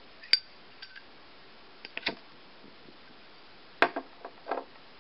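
Zippo lighter being handled: a series of sharp metallic clicks and clinks from its metal case, about seven in all. The loudest come about a third of a second in and just before four seconds in.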